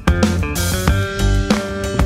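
Music: a band with guitars, bass and drums playing.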